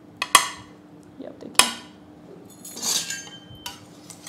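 A few sharp knocks of a metal palette knife against a plastic-backed silicone fan mould and a marble worktop, with a short scrape about three seconds in, as excess chocolate is scraped off the mould.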